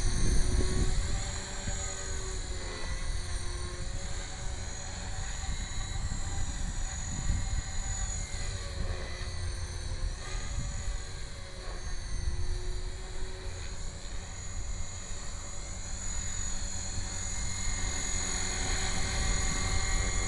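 Electric 450-size RC helicopter (HK450GT on a 3S LiPo) flying: the motor and rotor whine rises and falls in pitch as it manoeuvres. A low rumble sits under it, loudest at the start.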